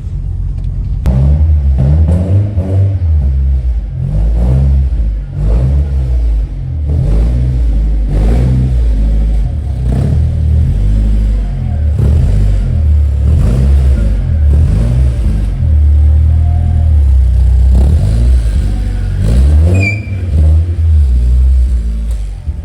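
Car engine revved hard over and over, its pitch climbing and dropping every second or two, with a brief high squeal near the end.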